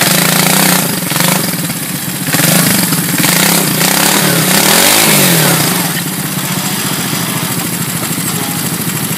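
Three-wheeler ATC's engine revving up and down under load as its rear tyres spin and churn through deep mud and water, with bursts of splashing; the machine is stuck in a rut.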